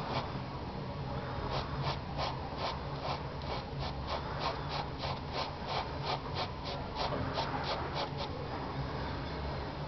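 White Derwent titanium-white chalk pencil hatching on grey card: quick, evenly repeated scratchy strokes, about three to four a second, that stop shortly before the end.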